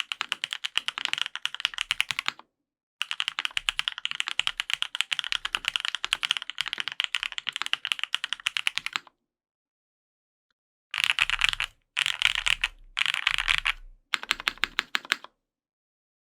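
Fast typing on a gasket-mounted Matrix 8XV 3.0 mechanical keyboard with Krytox-lubed Gateron Yellow Pro linear switches, an aluminium plate and GMK keycaps. Two long runs of rapid keystrokes are followed, after a pause, by four short, dense bursts of key presses.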